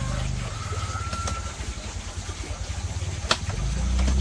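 A small engine running steadily with a low pulsing hum, getting louder about three and a half seconds in, with one sharp click just before.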